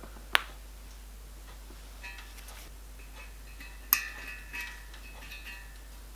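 A few sharp ticks and faint scratching from a small metal pick working solder paste around rivet heads on a copper boiler plate. The loudest ticks come about half a second in and again about four seconds in.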